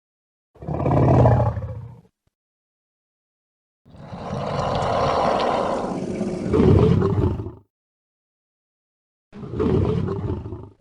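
Rancor creature roars, a sound effect: three separate roars with dead silence between them. The middle one is the longest, about four seconds, and swells to a second, louder peak near its end.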